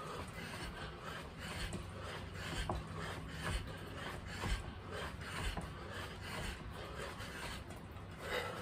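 Rhythmic scuffing and light thuds of a person doing quick squats on artificial turf, feet and hands brushing the ground about once a second, over a low steady hum.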